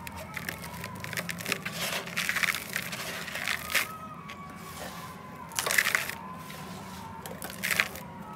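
Dry red dirt chunks crushed between fingers in a steel bowl: a run of small crackles and crunches, then gritty swishes as the hand rubs through the powder, loudest about six seconds in and again near the end.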